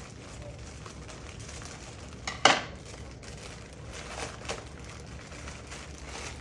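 Mail packages being handled and opened, plastic and paper rustling, with one sharp, loud noise about two and a half seconds in and a couple of softer ones later.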